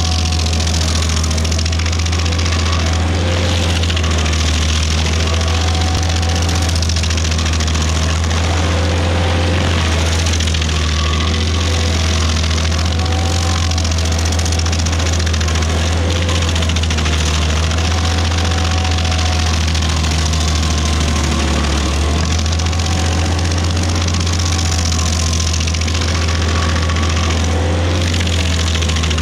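Rayco RG50 stump grinder running under load, its toothed cutter wheel grinding into a maple stump and throwing chips. A steady engine drone carries a grinding hiss, with mid-pitch tones that waver up and down as the wheel works.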